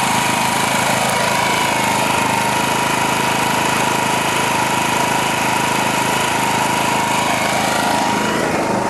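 Small portable petrol generator running steadily, an even engine drone with a constant high whine.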